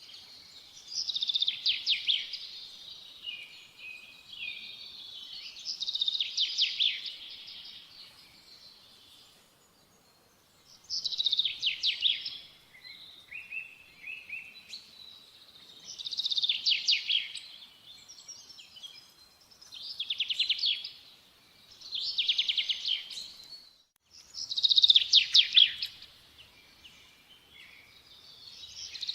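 A songbird singing: short phrases of rapid, high-pitched notes and trills, each lasting a second or two, repeated every few seconds.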